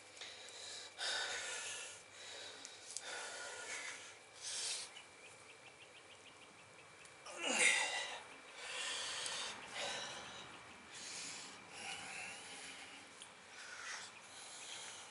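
A man's hard, strained breathing: a series of forceful exhales and gasps through nose and mouth a second or two apart, the loudest about halfway through, from the effort of bending a steel bolt by hand.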